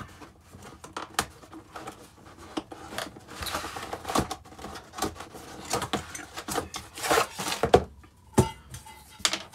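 Cardboard box being opened and handled: rustling and scraping of cardboard, loudest about seven seconds in, with a few sharp knocks as the titanium pan in its mesh bag is taken out.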